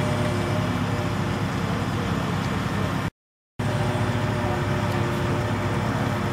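Forklift engine running steadily, broken once by a brief dead silence about three seconds in where the recording is cut.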